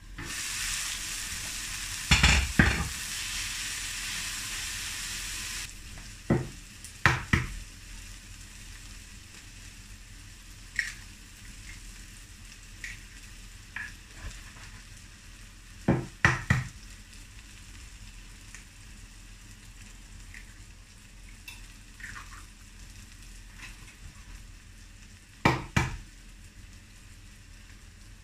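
Shredded cabbage and peppers sizzling in a non-stick frying pan, loudly while the glass lid comes off, with a clank or two about two seconds in; about six seconds in the sizzle drops suddenly to a quieter crackle. Three times, a pair of sharp knocks as eggs are cracked on the pan's rim and dropped in.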